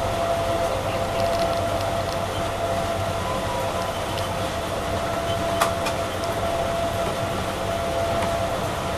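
Automated people mover shuttle train running along its guideway, heard from inside the cabin: a steady running noise with a constant whine. A single sharp click comes about five and a half seconds in.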